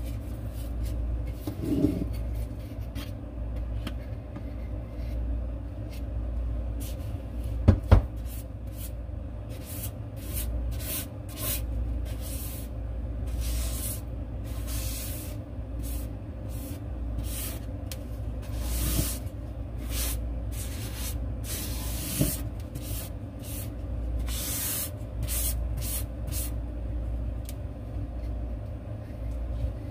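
Repeated short rubbing strokes on a surface, thickest through the middle of the stretch, over a steady low hum, with one sharp knock about eight seconds in.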